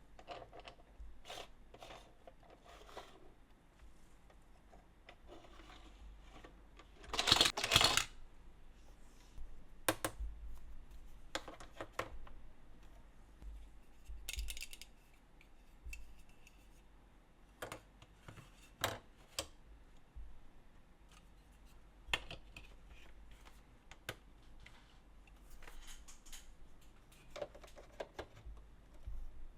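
Scattered clicks and short clatters of hard plastic toy pieces being handled, with a louder rattling clatter about seven seconds in.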